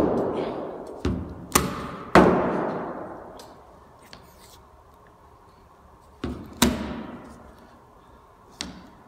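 Hand suction-cup dent puller worked on a dent in a truck's sheet-steel roof. About seven sharp pops, each followed by the roof panel ringing and dying away over a second or so, come in two groups: one in the first two seconds or so and one from about six seconds in.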